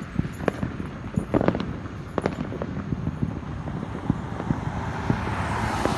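Fireworks going off: scattered sharp pops and crackles at irregular intervals, most of them bunched in the second and third seconds. The rushing noise of a passing car builds near the end.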